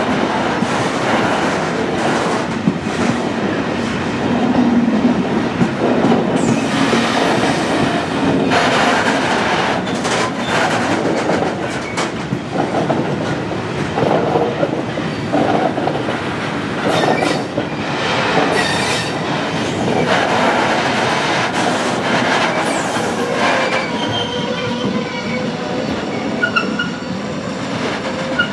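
Loaded freight flat wagons rolling past close by: a steady rumble and clatter of steel wheels on rail, broken by frequent clicks over the rail joints. A few short, high wheel squeals come in near the end.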